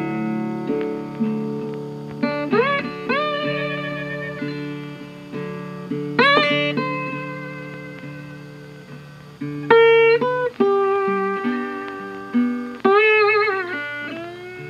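Background instrumental music: slow, sustained notes over a steady low bass line, several of them sliding up into pitch and held with a wavering vibrato.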